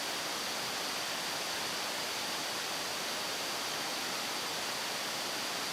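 Mountain stream rushing: a steady, even wash of water noise with a thin high hiss held over it.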